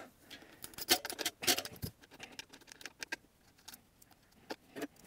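Light, irregular clicks and small metallic clinks of bus bars and terminal hardware being handled and lifted off the LiFePO4 cell terminals by hand.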